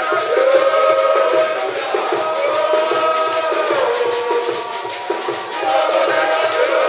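A group of voices singing a church hymn in long held notes over a fast, steady percussion beat.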